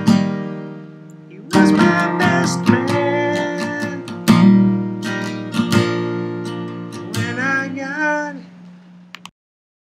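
Acoustic guitar playing an instrumental outro of strummed chords: a chord rings and fades, the strumming picks up again about a second and a half in, and the music fades out and stops shortly before the end.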